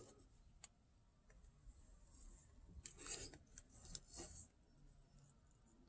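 Near silence, with a few faint clicks and soft rustling scrapes, most of them in the middle of the stretch.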